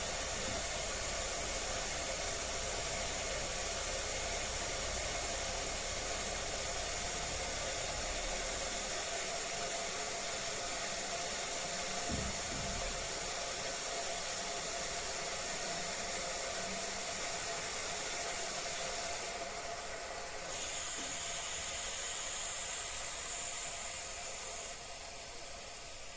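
Toilet cistern refilling after a flush: the fill valve gives a steady hiss that eases off slightly near the end.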